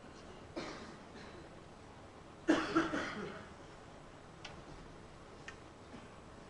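A spectator coughing in a hushed snooker arena: a short cough just over half a second in, then a louder run of coughs about two and a half seconds in.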